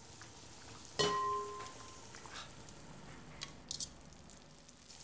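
Kitchenware knocked once about a second in, with a sharp clink that rings briefly, then a few small light clicks of crockery and utensils over a faint steady hiss.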